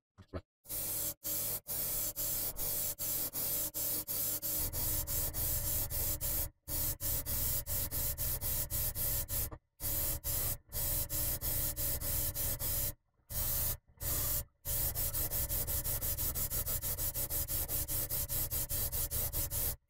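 Airbrush spraying paint onto a plastic test spoon: a steady hiss of air and paint starting just after the beginning, broken by many brief gaps, over a steady low hum.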